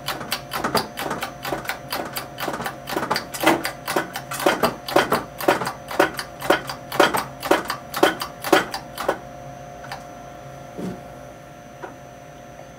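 Hand pump of a hydraulic shop press being worked, a sharp clack about twice a second as the ram forces an undersize bushing onto a shaft at around 2 tons. The pumping stops about nine seconds in.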